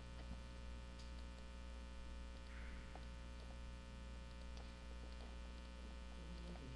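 Steady electrical mains hum on the recording, with a few faint clicks.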